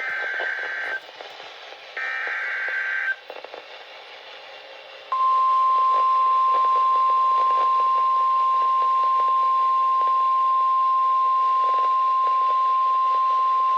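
Emergency Alert System warning over weather radio: two one-second bursts of warbling SAME header data, then a steady single-pitch alert tone held for about nine seconds, over faint radio static. The single tone is NOAA Weather Radio's 1050 Hz warning alarm, which announces a warning, here a Severe Thunderstorm Warning.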